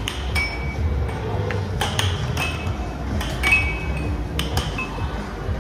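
Air hockey play: the puck clacking sharply against the mallets and table rails about a dozen times at irregular intervals, some hits ringing briefly, over a steady low hum and background music.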